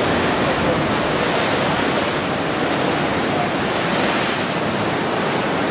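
Heavy sea surf breaking and churning against the rocks at the mouth of a sea cave, heard from inside the cave as a loud, steady rush of water.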